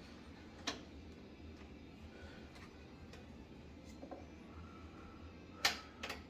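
Scattered sharp clicks and light knocks of plastic and metal parts being handled while a microwave is taken apart: one click a little under a second in, and a louder pair of clicks near the end.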